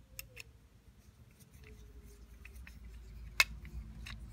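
Small metallic clicks and scrapes of a screwdriver driving self-tapping screws into the base plate of a Corgi Vauxhall Velox diecast model, with one sharp click a little over three seconds in.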